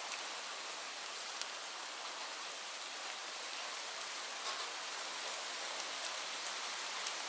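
Steady rain pattering on leaves: an even hiss with scattered sharper drop hits, a few louder ones near the end.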